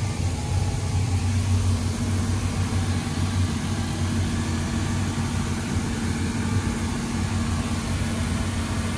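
MAN V8-900 (D2848 LE) V8 marine diesel running steadily under load with the boat at speed, heard inside the yacht's cabin as a constant low drone with a hiss over it.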